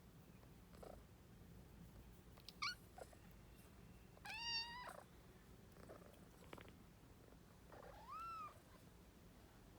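Kittens meowing: three high-pitched meows, a short one about two and a half seconds in, a longer, louder one about four and a half seconds in, and one that rises then falls near the end.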